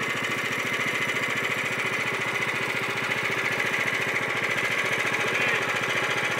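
Small gas engine of a portable wakeboard winch running steadily, its firing pulses coming at an even rate.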